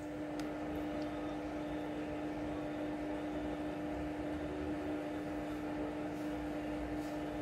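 Steady hum of aquarium pump equipment on one low tone, with a faint hiss and a few faint clicks over it.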